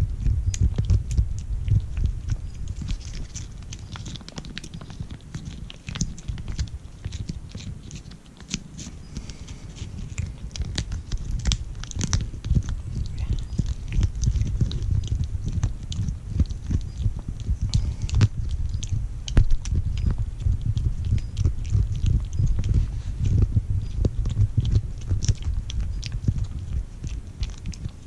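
Orange-and-white kitten licking and chewing a CIAO Churu paste treat straight from the squeeze tube, gnawing at the plastic now and then. It makes a run of many small wet clicks and smacks close to the microphone, over a low rumble.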